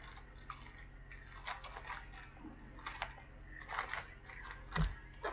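Trading cards and packs being handled: scattered light clicks and rustles, with one louder thump near the end.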